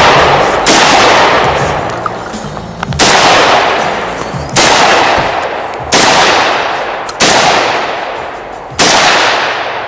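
AK-47 rifle fired in single shots, six in all, spaced unevenly a second or two apart, each shot followed by a long echoing tail that fades before the next.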